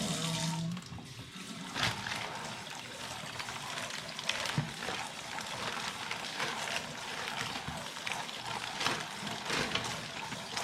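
Kitchen tap running into a sink, the water splashing irregularly as something is rinsed under it.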